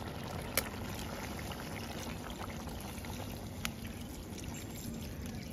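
Water poured from a plastic bottle into a pot of pork ribs and herbs cooking over a wood fire, a steady pour, with two sharp clicks.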